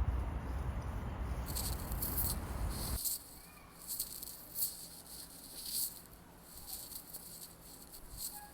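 Wind buffeting the microphone as a low rumble that cuts off about three seconds in, over irregular, rattling patters of rain that start about a second and a half in.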